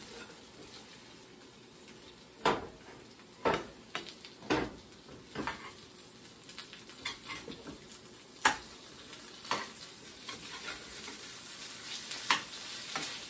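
Ham and potato cakes frying in oil in a pan, with a steady sizzle. A fork and a slotted spatula clink and scrape against the pan at irregular moments as the cakes are checked and turned.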